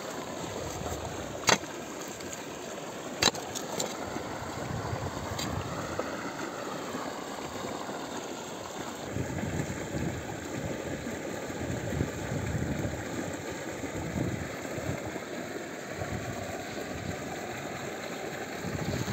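A wooden digging stick striking hard red clay soil, three sharp knocks about two seconds apart in the first six seconds, over a steady rushing of wind on the microphone.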